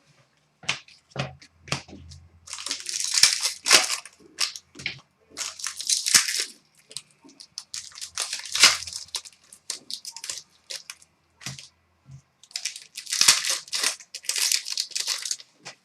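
Trading cards and their plastic sleeves being handled: irregular rustling and scraping as cards slide against card and plastic, in several short bursts with small ticks between.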